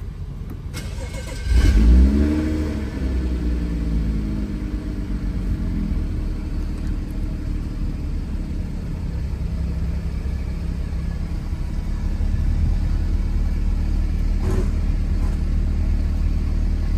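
A car engine starts about a second and a half in. Its revs flare up, then settle over a few seconds into a steady idle.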